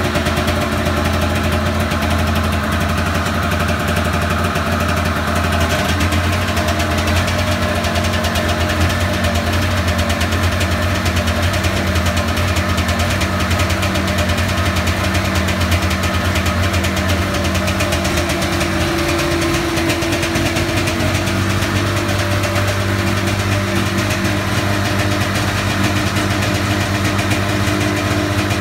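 1996 Polaris Indy Lite 340's two-stroke engine idling on choke just after a cold start, running roughly; the owner puts the rough running down to stale gas left in the tank for six months.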